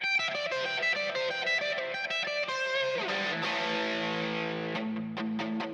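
Gibson ES-339 semi-hollow electric guitar on its bridge '57 Classic humbucker, played through a Kemper amp profile with a little overdrive. A quick run of picked single notes, then a slide down about three seconds in into held lower notes, with a few picked strokes near the end.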